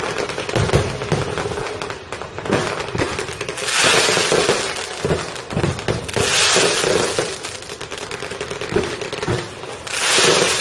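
Fireworks display: a dense run of rapid pops and crackles, with stronger rushes of hiss about a third of the way in, around the middle and again near the end.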